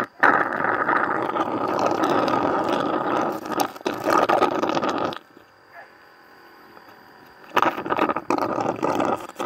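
Honey being slurped through a straw from the honey pots of a stingless-bee nest: a noisy sucking sound for about five seconds, a pause, then sucking again from about seven and a half seconds in.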